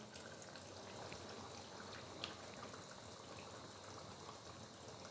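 Faint simmering of chicken curry in a kadhai as whisked yogurt is poured in and spread with a spatula, with a single soft tick about two seconds in.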